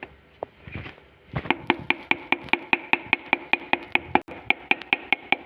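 Even, rapid metallic clicking from a hand tool working on the engine being assembled, about four to five clicks a second with a brief ring to each, starting about a second and a half in.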